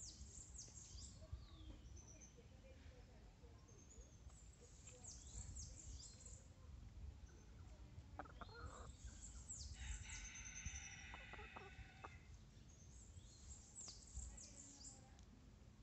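A hen clucking quietly close by. Other birds give clusters of high, falling chirps every few seconds.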